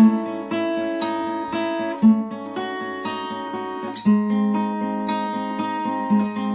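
Acoustic guitar strummed in an instrumental passage of a slow ballad, without singing; a new chord is struck about every two seconds.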